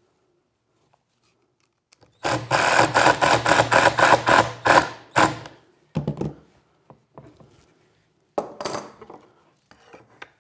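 Cordless driver running a screw through the sled's fence into the base for about three seconds, with an even pulsing whir, fixing the freshly re-squared fence. A few short knocks and clicks follow as the clamp and square are handled.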